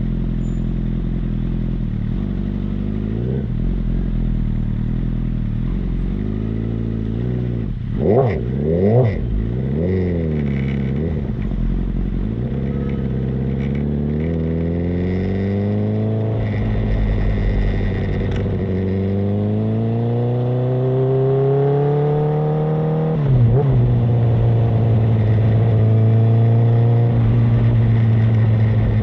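Honda CBR1000RR inline-four sport bike running through a large-bore aftermarket exhaust: it idles, is blipped sharply twice, then climbs steadily in pitch twice, each climb ending in a sudden drop, and holds a steady note near the end.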